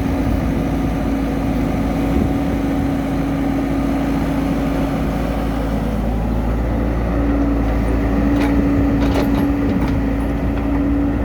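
Excavator diesel engine running steadily while digging, its note stepping up slightly about seven seconds in, with a few sharp knocks between eight and a half and ten seconds.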